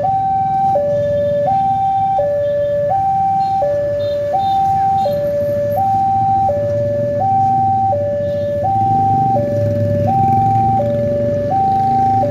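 Railway level-crossing warning alarm sounding its two-tone electronic signal, alternating steadily between a higher and a lower tone about every three quarters of a second. It signals that a train is approaching and the crossing is closing. Low road-traffic rumble runs underneath.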